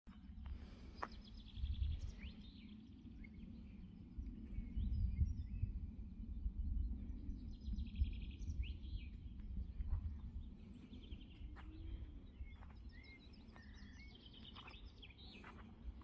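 Wind rumbling on the microphone, heaviest in the first ten seconds and lighter after, under several small songbirds singing short rapid trills and chirps.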